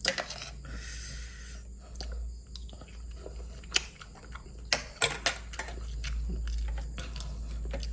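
Food and containers being handled at a meal: scattered sharp clicks and a short rustle about a second in, over a steady low hum.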